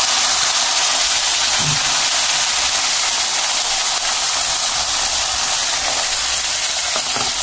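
Thin pancake batter sizzling in hot cooking oil in a stainless steel frying pan, a loud, steady hiss.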